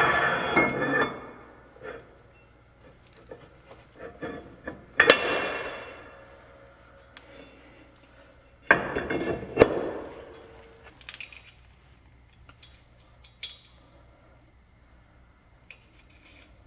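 Steel axle shaft and its flange being worked into a truck's rear wheel hub: metal scraping and ringing at the start that fades within about a second, a clank with a ringing tail about five seconds in, then two sharp metal clangs about a second apart as the flange seats on the hub studs. After that come scattered light metal clicks as parts are fitted onto the studs.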